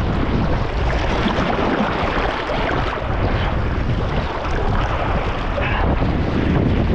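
Wind buffeting the microphone over a steady rush and splash of water skimming fast just below, with deep rumbling gusts and no engine or voice.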